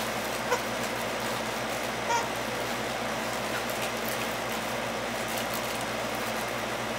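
Steady background hiss with the faint sounds of a dog mouthing a plush toy: a soft click about half a second in and a brief faint squeak about two seconds in.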